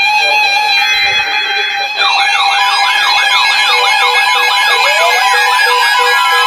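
Weather radio alert sirens start about two seconds in. A fast up-and-down yelping siren, with a slower falling and a rising siren glide over it, signals an incoming warning broadcast.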